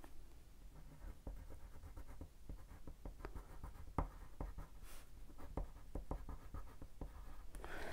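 A Crayola Swirl wax crayon drawn across textured cardstock: a run of short, irregular scratchy strokes as a swatch is scribbled, faint throughout.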